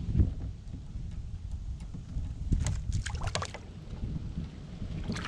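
Wind rumbling on the microphone beside a kayak, with a knock at the start and a quick run of splashes and knocks about halfway through as a caught fish is let back into the water.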